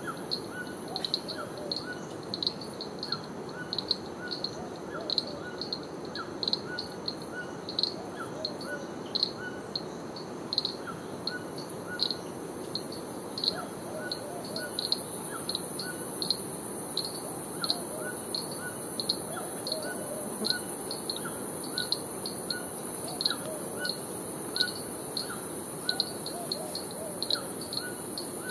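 Rainforest ambience: a short, high chirp repeats about twice a second over a steady low rush. A high hiss grows louder about halfway through.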